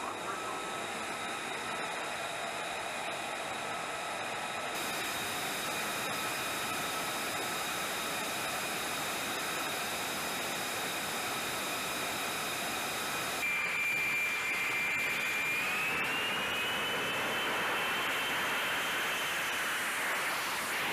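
F-35B jet engine running with a steady high whine over a rushing roar. The sound changes abruptly twice, and about two-thirds of the way in the whine rises in pitch as the engine spools up.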